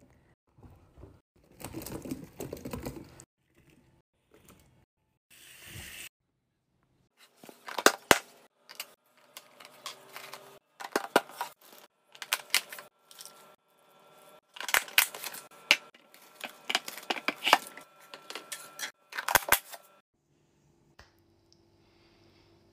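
Containers and food packaging being handled and set down: uneven clusters of clicks, taps and knocks, with a short rustle about five seconds in.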